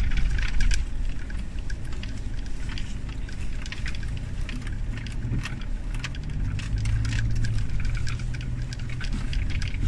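Pickup truck driving over a rough, rutted sand track, heard from inside the cab: a steady low engine and road hum, with frequent short clicks and rattles as the truck jolts over the uneven ground. The engine note rises a little partway through.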